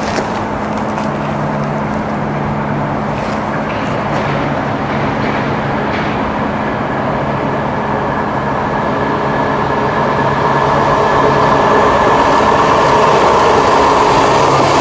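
NSB Class 92 diesel multiple unit approaching along the track, its engine and running gear growing louder over the last few seconds with a rising whine. This sits over a steady roar and low hum that run throughout.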